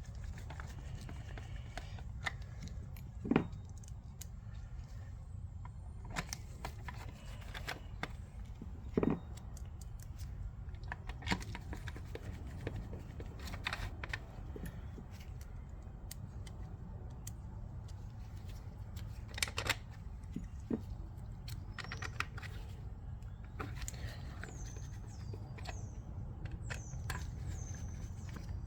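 Screwdriver driving small screws back into a plastic VHS cassette shell: scattered small clicks and taps, with two louder knocks about three and nine seconds in, over a steady low hum.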